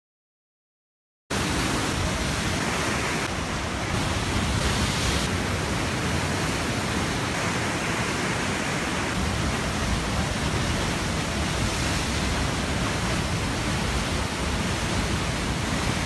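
Fast white water of the Waikato River rushing through the Huka Falls gorge: a steady, even rush that starts abruptly about a second in.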